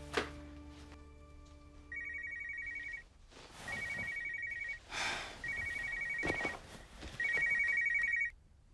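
Mobile phone ringtone: a high electronic trill sounding in four rings of about a second each, with soft swishes between the rings.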